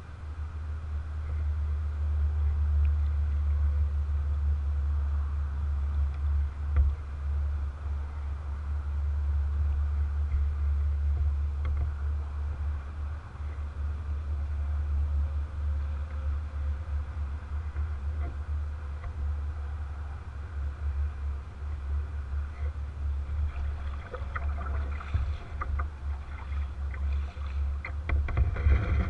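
Low, steady rumble of water and wind on a GoPro mounted on a kayak's bow as the kayak glides, with a few faint light knocks near the end.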